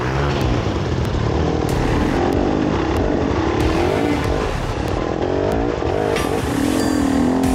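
Trail motorcycle engine running, its pitch rising and falling again and again as the throttle is opened and closed.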